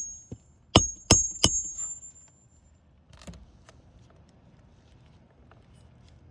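Hammer striking nails: three sharp, ringing metal strikes in quick succession about a second in, followed by a few faint taps.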